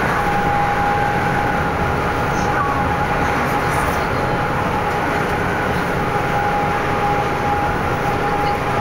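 Steady road and wind noise inside a vehicle cruising at highway speed, a constant rumble with a steady high-pitched whine running through it.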